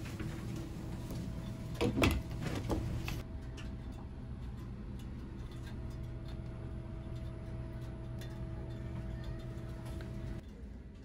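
The hinged lid of an overhead luggage bin on a Nankai Rapi:t train swung shut, latching with a couple of sharp clacks about two seconds in and a lighter knock just after. Under it a steady hum with a low drone runs on and stops abruptly near the end.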